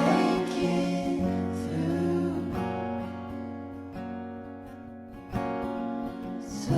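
Background music: a gently strummed acoustic guitar.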